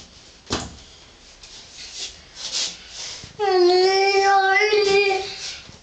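A toddler's voice sings one long held note for about two seconds, its pitch wavering slightly. It starts about halfway through, after a sharp click and a few soft scratchy sounds.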